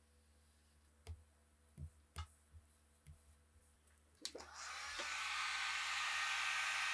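A few soft knocks, then a click and an electric heat gun starts up, its fan blowing a steady rush of hot air that holds on.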